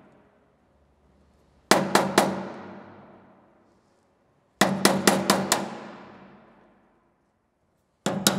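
Hammer blows on metal of the welder's steel case. They come in quick groups: three, then five, then two just before the end. Each group rings and dies away over a second or two.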